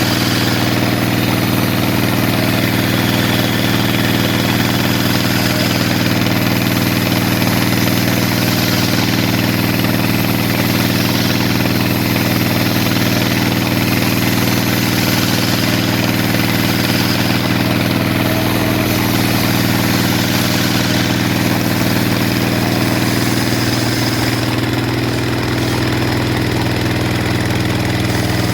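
Sawmill saw machine running steadily with a low engine-like hum while ripping kamper wood.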